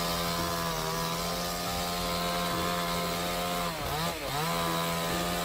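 Chainsaw engine running at high revs, holding a steady high pitch, with a brief dip in revs about four seconds in before it picks back up.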